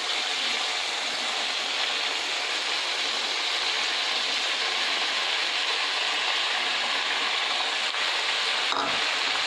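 Grated paneer, carrot and onion-tomato masala sizzling steadily in a non-stick pan on the stove as boiled macaroni is tipped in.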